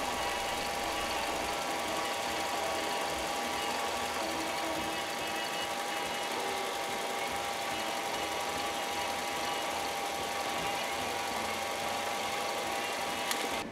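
Hyundai Accent's four-cylinder engine idling steadily, heard close up in the engine bay. One brief click sounds near the end.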